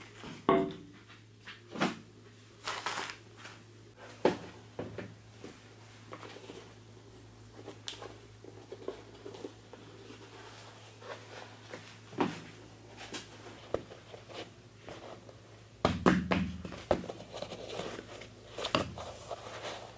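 Household handling noises: cloth rustling and scattered light knocks, then sneakers being handled and set down, with a cluster of heavier thuds on the tile floor about sixteen seconds in. A steady low hum runs underneath.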